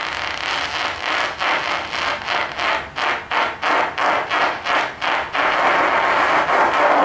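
Long, airy, unpitched fart noise from the performer. About a second in it breaks into a run of about a dozen short pulses, roughly three a second, then runs on steadily and cuts off abruptly at the end.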